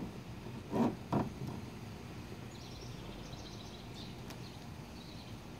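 Outdoor background with a steady low hiss and faint, repeated high chirps of small birds through the second half. Two brief soft sounds come about a second in.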